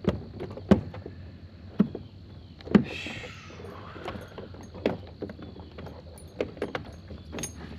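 Irregular sharp knocks and clatters on a kayak as a landed fish flops in the bottom of the boat and is handled. There is a short rushing swish about three seconds in.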